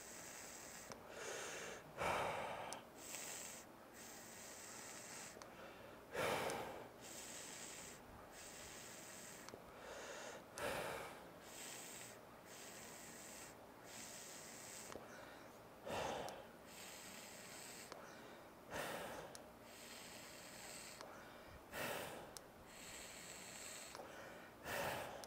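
A person vaping mouth-to-lung on a YachtVape Pandora DOTRBA boro tank in a dotMod dotAIO: quiet draws and about seven short exhaled breaths a few seconds apart. There is no gurgling or dry hit, a sign the tank is wicked right.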